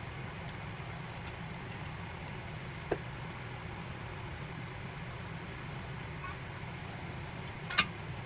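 Steady low machine hum, with a short sharp tick about three seconds in and a louder sharp click near the end.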